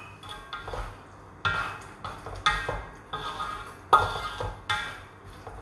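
Wooden spatula stirring a saucy prawn dish in a metal wok, knocking against the pan about once a second, each knock ringing briefly.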